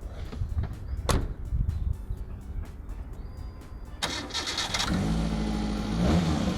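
Hyundai Santro's petrol engine being started: a short burst of cranking about four seconds in, then the engine catches and runs at idle, rising and falling briefly near the end. A single sharp knock comes about a second in.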